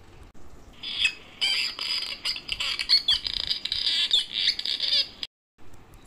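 Recorded swallow twittering: a fast, dense run of high chirps and warbles that stops about five seconds in.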